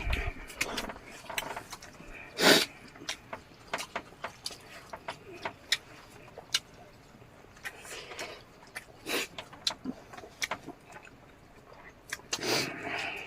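Close-up eating sounds: irregular crunching, chewing and mouth clicks, with the loudest crunch about two and a half seconds in.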